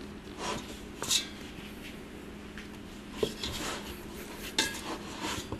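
Hands kneading soft all-purpose-flour dough in a stainless steel bowl: irregular soft rubbing and squishing, with a few sharper knocks, about a second in and again past three seconds, over a steady low hum.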